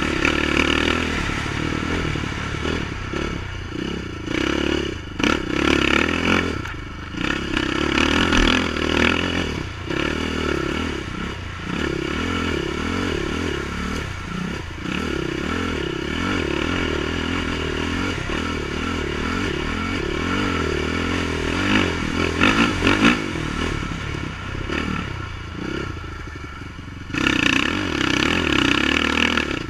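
Honda TRX450R sport quad's single-cylinder four-stroke engine under way, its pitch rising and falling as the throttle is opened and closed. Several bursts of hard revving stand out, the loudest a little past the middle and near the end.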